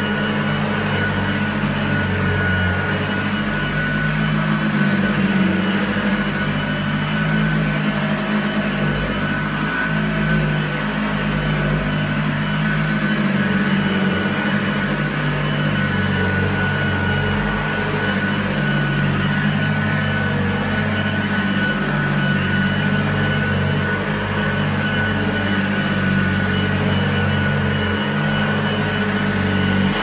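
1976 Hoover Junior U1012 upright vacuum cleaner running steadily while pushed back and forth over carpet: its motor and metal fan give a steady whine over a low hum.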